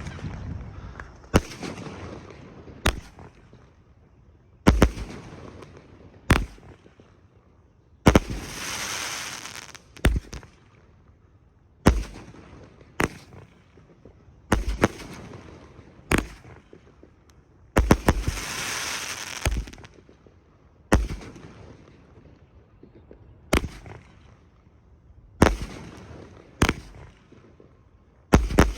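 Grenade Fireworks Vengeance 36-shot cake firing its shots one after another, a sharp bang roughly every second or two from its all-flash breaks. A few of the bangs are followed by a hiss lasting over a second.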